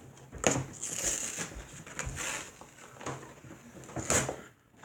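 Cardboard toy box being pulled and pried open by hand, its taped flaps scraping and tearing in a series of rough, irregular bursts; the box is taped shut firmly.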